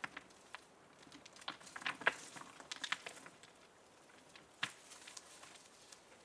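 Dry leaves and twigs rustling and crackling under hands working the ground. The light crackles are scattered, bunch up between about one and a half and three seconds in, and a single sharper snap comes a little after the middle.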